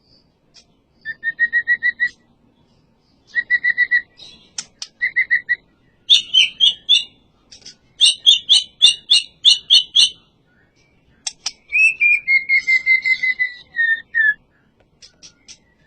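White-rumped shama (murai batu) singing in full voice: short phrases of rapidly repeated clear whistled notes, sharp clicking chips, fast high note runs, and a long whistle that falls slightly in pitch near the end.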